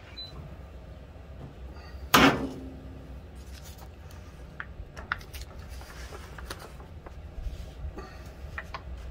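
The metal lid of a Masterbuilt Gravity Series 1050 charcoal grill swinging open, with one loud metallic clang about two seconds in that rings briefly. Light clicks and taps follow as the grill is handled.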